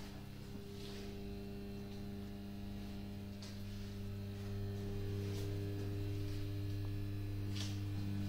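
Steady electrical hum with several overtones from the 1941 freight elevator's Karl Flohr hoist machinery, getting somewhat louder about halfway through. A few faint clicks.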